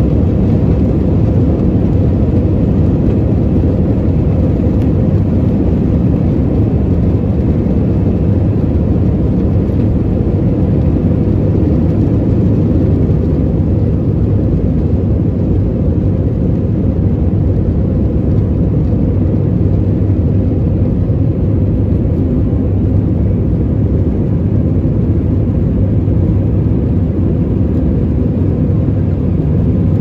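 Airbus A319 jet engines at takeoff thrust, heard inside the cabin as a loud, steady, low-pitched drone through the takeoff run and climb-out.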